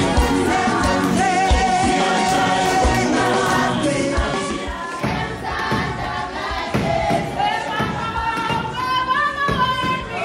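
Many voices singing a Zulu song together in chorus, with low irregular thumps underneath.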